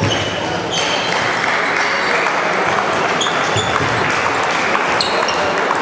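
Table tennis rally: the ball clicking sharply off bats and the table again and again, with more ball clicks from neighbouring tables and a steady rush of hall noise behind.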